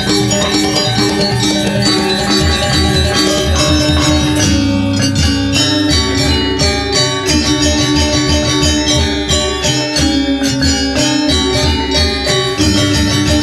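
Balinese gong kebyar gamelan playing: bronze metallophones struck with mallets in fast, dense patterns, with a small hand-held gong beating a steady pulse and a row of kettle gongs played with two sticks.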